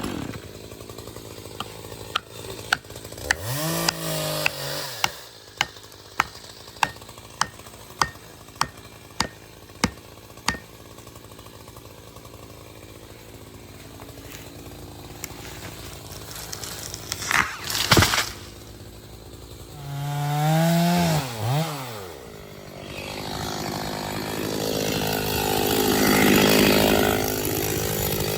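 Chainsaw revving briefly, then a run of about a dozen sharp, evenly spaced knocks. A single louder bang follows, and near the end the chainsaw revs up again and cuts steadily into wood.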